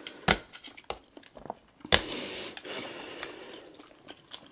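Close-up mouth sounds of eating Kyoho grape jelly balls: two sharp wet clicks, about a quarter second in and near two seconds, then soft wet chewing of the jelly with small smacks.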